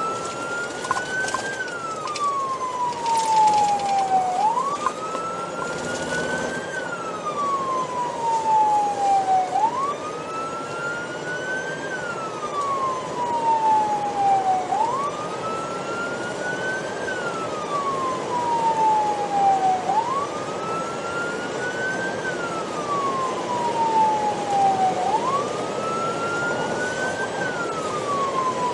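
Police siren wailing, heard from inside the patrol car's cabin: each cycle jumps up, climbs a little more, then falls slowly over about three seconds, repeating about every five seconds. Steady road and engine noise underneath.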